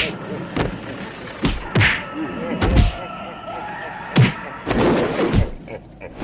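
Gore sound effects: a series of heavy thuds and whacks, about eight blows in six seconds, with a voice heard under them.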